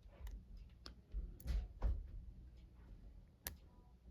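Scattered small metallic clicks and light knocks from a lock pick and tension wrench working the pins of a Master Lock 532 padlock, with low thumps from handling the lock. The sharpest click comes about three and a half seconds in.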